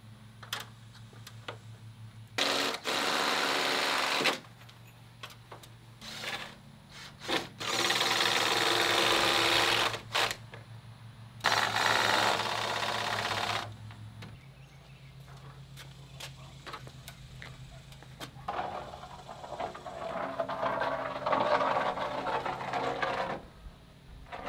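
Cordless impact driver driving screws through a wooden ceiling joist into the top plate, in three runs of about two seconds each with a rapid hammering rattle, and scattered knocks of the wood between runs. A quieter spell of clatter follows later.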